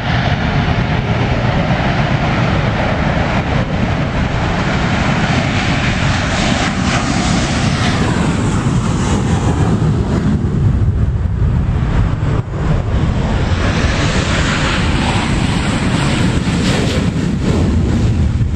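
Fighter airplanes taking off: loud, steady engine noise, with a falling sweep in pitch about halfway through as one goes by.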